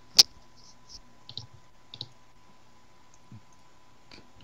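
Computer mouse clicks: one sharp, loud click just after the start, then a few much softer clicks spread over the next few seconds.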